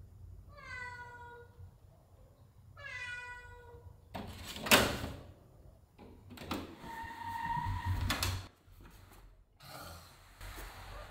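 A domestic cat meows twice, two short calls about two seconds apart. About five seconds in comes a loud thump, followed by further knocks and scuffling noise.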